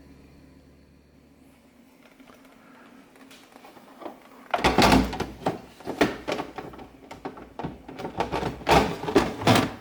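Plastic ice bucket of a Samsung refrigerator's ice maker being slid and knocked back into place, a run of sharp clunks and rattles starting about halfway through.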